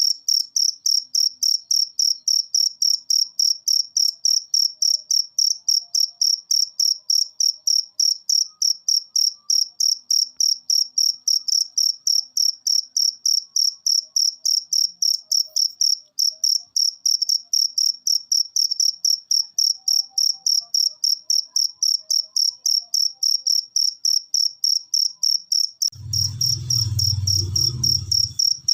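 A cricket chirping loudly and steadily in a fast, even pulse of high-pitched chirps, about three to four a second. Near the end, a low rumble runs under the chirping for a couple of seconds.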